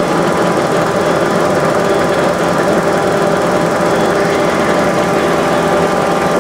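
Cincinnati Model 2OM centerless grinder running under power with its wheels turning, a loud, steady machine hum with several held tones.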